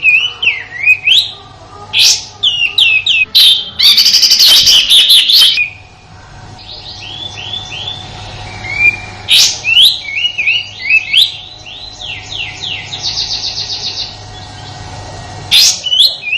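Kapas tembak bird singing its harsh 'tembakan' song: quick chirps and slurred whistles, with a loud rattling burst about four seconds in and a fast run of repeated falling notes near the end.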